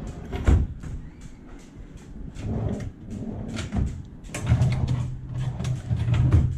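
Storage drawers sliding and knocking shut, a run of knocks and clicks with one sharp knock about half a second in. A steady low hum comes in for the last two seconds or so.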